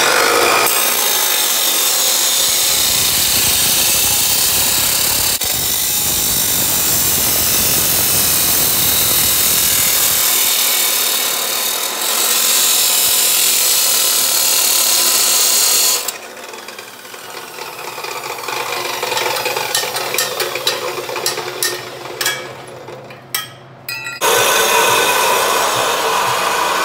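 A 14-inch abrasive cut-off saw cutting through a steel exhaust pipe: a loud, steady grinding shriek for about sixteen seconds, with a brief dip partway. The sound then falls to quieter, uneven noise with scattered clicks, and loud grinding starts again near the end.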